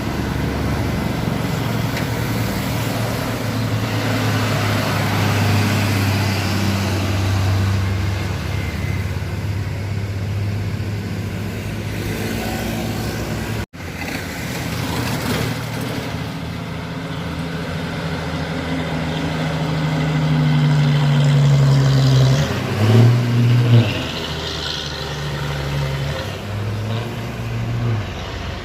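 Truck engine running hard under load on a steep uphill climb. Its pitch rises steadily for several seconds, then breaks into a few loud revving surges about two-thirds of the way through. A short gap about halfway looks like an edit.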